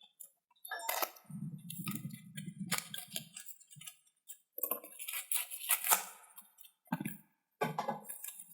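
Cardboard parcel and its packing being opened and handled by hand: irregular rustling, crackling and light knocks, starting about a second in.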